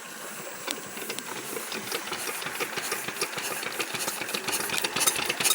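A 16 HP diesel engine starting up, its firing strokes coming faster and louder from about two seconds in as it picks up speed.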